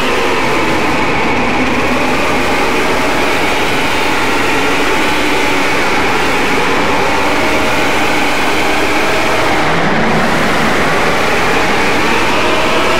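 Loud, dense electronic drone music in a dark ambient, electronic heavy metal style: layers of sustained tones over a steady noisy wash, with no clear beat. A high tone begins to slide down near the end.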